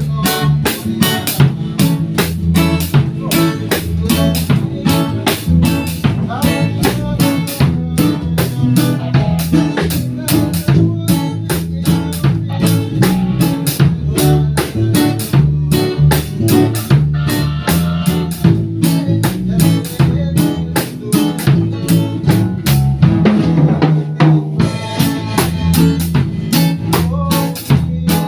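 A band playing instrumental music at a sound check, led by a full drum kit with bass drum, snare and rimshots in a steady rhythm, over a heavy bass line.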